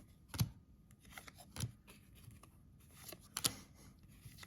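Baseball trading cards being flipped through by hand, each card slid off the stack with a short snap, three sharper ones among soft rustling of card stock.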